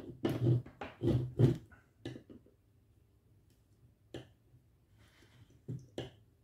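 Handling noises while soldering a circuit board: a few quick scuffs and knocks in the first second and a half, then near quiet with a few faint clicks as the iron and solder wire work the pins.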